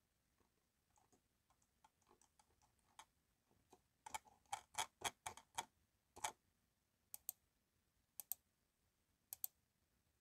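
Faint clicking of a computer keyboard and mouse: scattered light taps, then a quick run of clicks about four seconds in, followed by three quick pairs of clicks about a second apart.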